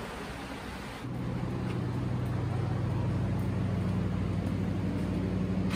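Steady low hum of a stationary passenger train standing at the platform, starting about a second in.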